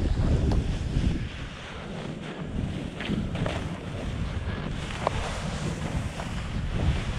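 Wind rumbling on an action camera's microphone as a snowboard rides through deep powder, the board hissing through the fresh snow.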